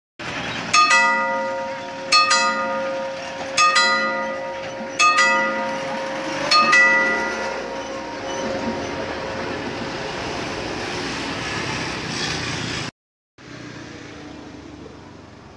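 Bell-like chimes struck five times, about every second and a half, each strike a quick double note that rings on, over steady vehicle noise. Everything cuts off suddenly near the end, leaving quieter outdoor noise.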